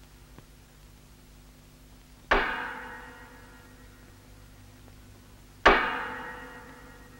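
Heavy steel struck hard twice, a few seconds apart, each blow ringing out and fading over about a second and a half, like a hammer on a locomotive's steel.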